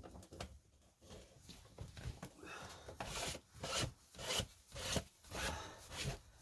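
Plastic pipe fitting on a sump pump's 1.5-inch discharge line rubbing and scraping as it is worked into place by hand. The scraping comes in repeated strokes about twice a second in the second half.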